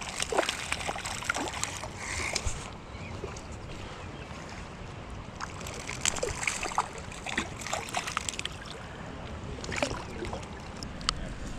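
Creek water running steadily, with scattered short splashes and knocks.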